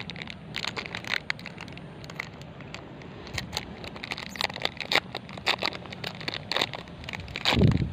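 Small plastic wrapper being crinkled and torn open by hand: a run of irregular sharp crackles. A louder low rustle comes near the end.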